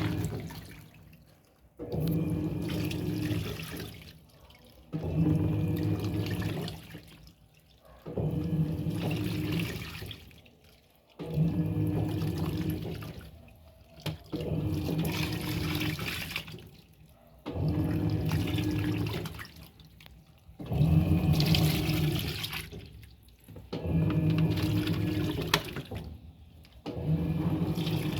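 Electrolux Turbo Economia LTD06 top-load washing machine agitating a load: the motor hums and water sloshes in bursts of about two seconds, each followed by a short pause, repeating about every three seconds.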